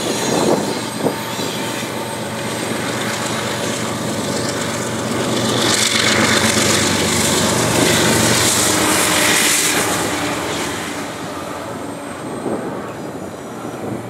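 Two GE diesel-electric freight locomotives, an ES44AC and an AC4400CW, running past close by on a curve. Their engine drone and rolling noise grow to their loudest about halfway through, then ease as the doublestack container cars roll by.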